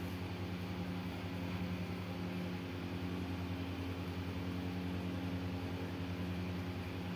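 Steady low hum, even and unchanging, with no other distinct sounds over it.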